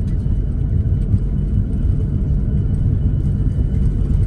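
Steady low rumble inside the cabin of a Boeing 737-700 rolling down the runway after landing with its ground spoilers raised: engine and landing-gear noise.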